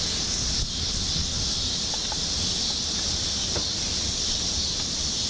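High storm winds blowing steadily: an even rushing hiss with a low rumble underneath.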